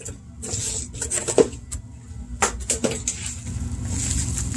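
Handling noise from a cardboard shipping box full of packing peanuts: scattered knocks and clatters as the box is tipped and rummaged. Near the end, plastic bubble wrap crinkles as the wrapped item is lifted out.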